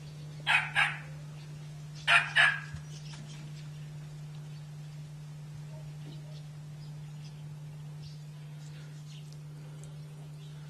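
A small dog barking: two quick double barks about a second and a half apart, over a steady low hum.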